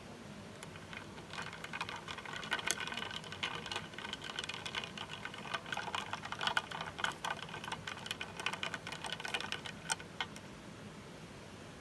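Ice cubes clinking rapidly against a glass as an iced latte is stirred, a quick run of ringing clicks that starts about a second in and stops near the end.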